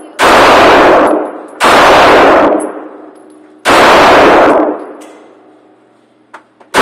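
Three pistol shots fired in an indoor shooting range, the second about a second and a half after the first and the third two seconds later, each loud with a long echoing tail off the range walls. A couple of small clicks follow near the end.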